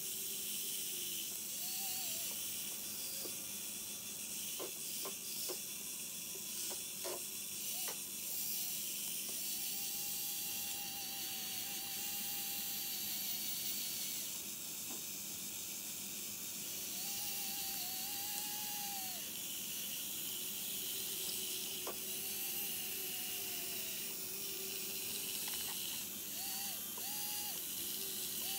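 Tiny geared electric motors of a micro-scale RC Liebherr 974 excavator model running in short bursts as it slews and works its boom, arm and bucket: a thin whine that rises and falls in pitch with each movement, several times, over a steady hiss. A few clicks sound a few seconds in.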